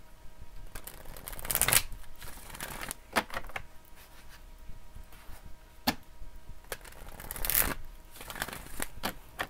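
A tarot deck being shuffled by hand: several swishing shuffles, loudest about a second and a half in and again near the end, with a couple of sharp taps of the cards between them.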